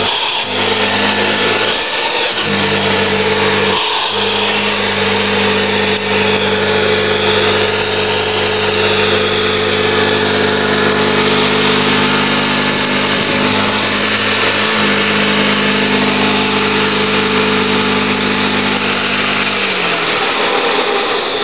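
Hoover InnKare UK701 commercial vacuum cleaner running steadily, a low hum under a high motor whine. The low hum drops out briefly twice early on and stops a little before the end while the whine carries on.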